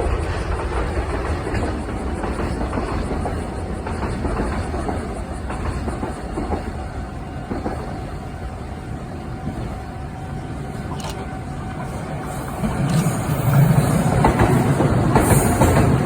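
Train passing on the rails, a steady rumble with wheel noise that grows louder about thirteen seconds in.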